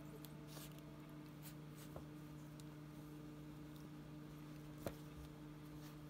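Faint rustling and a few soft taps as a cat paws at a feather wand toy on a wooden table, over a steady low hum; the sharpest tap comes about five seconds in.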